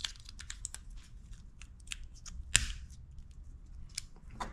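Fingers handling a plastic car key fob and seating a CR2032 coin-cell battery in it: a scatter of small clicks and taps, with one louder click about two and a half seconds in.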